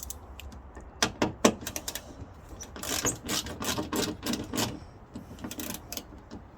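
Hand socket ratchet clicking in quick runs of short strokes while backing out a 10 mm bolt holding the hood latch.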